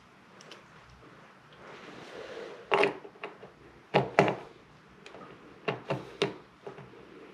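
Small metal shower-valve trim parts being handled and fitted onto the valve stem: a few short clicks and clacks, the loudest about three and four seconds in.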